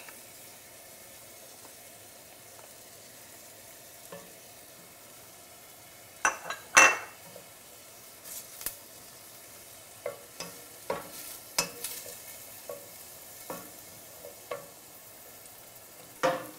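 Chopped onions and garlic sizzling gently in olive oil in a stainless steel pan, while a wooden spatula stirs and knocks against the pan now and then. The loudest knocks come about six to seven seconds in, with more scattered through the second half.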